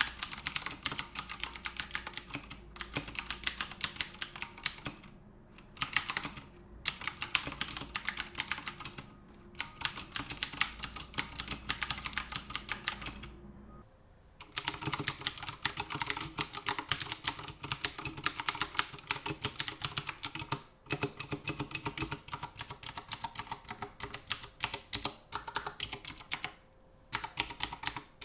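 Fast typing on an Akko 3084 mechanical keyboard with blue switches: a rapid run of key clicks in bursts, with short breaks and a longer pause about halfway.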